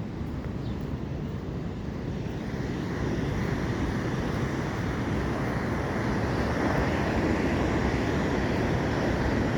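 Atlantic surf rushing steadily, with wind buffeting the microphone; the rush grows louder about three seconds in as a wave surges.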